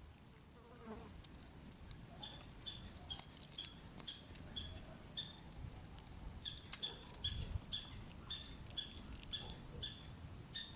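A bird giving a long series of short, sharp, high calls, about two a second, beginning about two seconds in.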